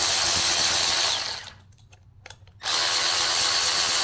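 Milwaukee cordless electric ratchet with a 3 mm hex bit spinning out the small Allen screws on a Tial wastegate's top cap. It runs steadily, stops about a second and a half in, then starts again a second later and runs to the end.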